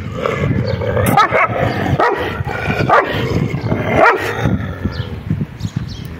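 A dog barking at a rival dog: a string of sharp barks about a second apart, fading near the end.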